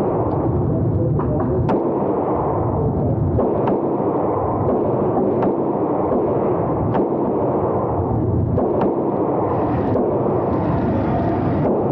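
Gunfire at a shooting range: sharp single gunshots every second or two, two of them close together near the end, over a loud steady rushing noise.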